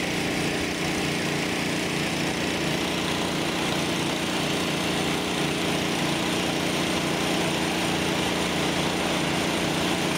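Steady drone of engines running at a water main repair: the crew's pump and idling work trucks, with a steady hiss over the top.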